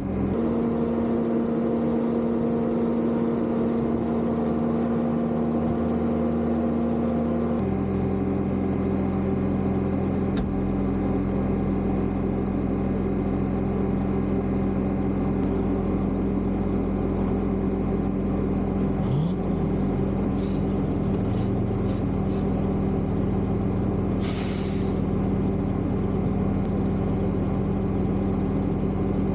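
Diesel engine idling steadily, its pitch dropping slightly about seven or eight seconds in. A short hiss of released air comes about 24 seconds in.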